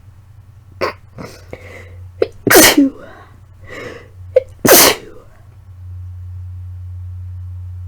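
A woman with the flu sneezing twice, about two seconds apart, each sneeze led in by catching, gasping in-breaths. She calls the sneezes really messy and has to blow her nose after them.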